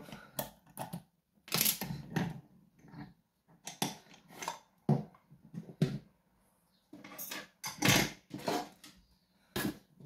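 Scattered clicks, knocks and light clatter as a lock cylinder in a plastic housing and metal picking tools are handled: the lock is turned back, freed from the vise and set down on the board. The clicks come in several short bursts, the loudest a second or two in and again near eight seconds.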